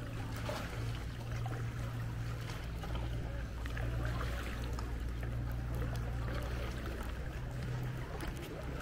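Water lapping and trickling around a sea canoe as it is paddled along a rock face, over a steady low hum.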